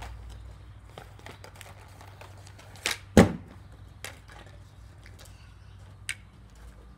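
Street hockey stick knocking and clicking on an asphalt driveway. Light taps run throughout, with two sharp knocks about three seconds in, the second one loud with a low thud, then a couple of single clicks.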